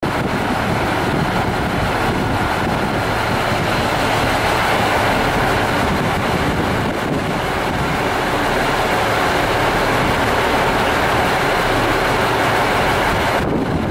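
Diesel engines of a seven-car JR Central KiHa 85 series train, fourteen Cummins engines in all, roaring steadily as the train departs.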